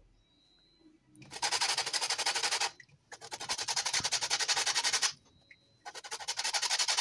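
A lemon rubbed hard against a metal box grater, zesting the rind: three spells of fast rasping of about one and a half to two seconds each, starting about a second in, with short pauses between.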